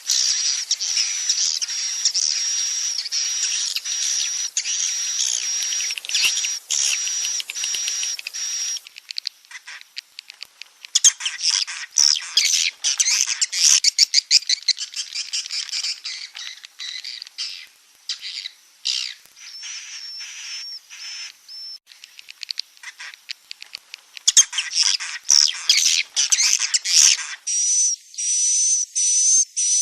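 Recorded calls of edible-nest swiftlets: dense, high-pitched chittering trills and rapid clicking, joined in segments that change abruptly several times. This is a 'roosting call' lure recording, played in swiftlet houses so that young swiftlets settle and stay.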